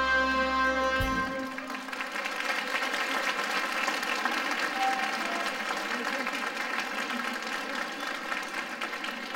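A live dance band's held final chord with brass stops about a second in, and audience applause follows, slowly fading.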